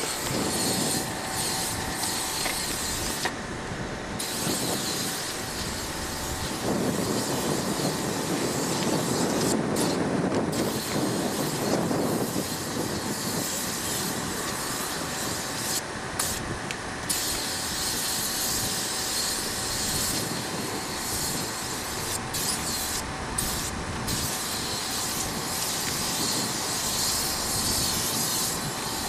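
Aerosol spray-paint can hissing in long bursts, cutting off and starting again several times as lines are sprayed, over a steady background rumble.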